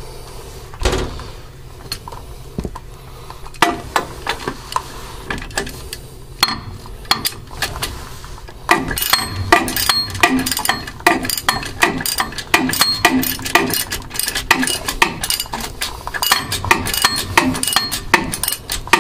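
Socket ratchet turning an anode into the pump's discharge flange: a few scattered metallic clinks, then about halfway through a dense run of quick ratchet clicks, several a second, as the anode is tightened down.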